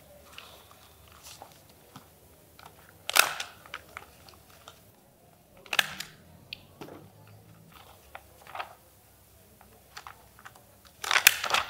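Paper rustling and pages being turned in a ring binder, with light scattered clicks from handling desk items. Four louder crisp rustles stand out, about 3, 6, 8.5 and 11 seconds in.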